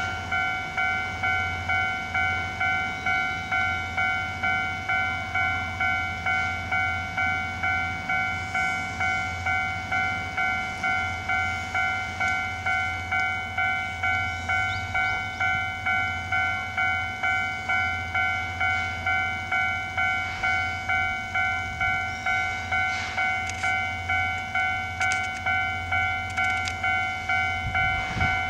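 Japanese level-crossing warning bell ringing with an even, repeating electronic ding, a little over one a second, that carries on without a break. It is the crossing alarm sounding while the barriers are down, signalling that a train is approaching.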